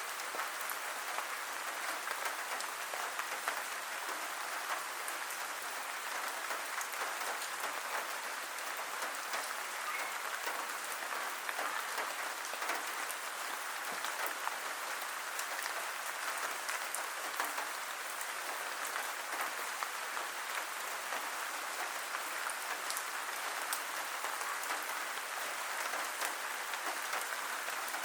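Steady rain falling, a dense even patter of many small drops hitting a surface.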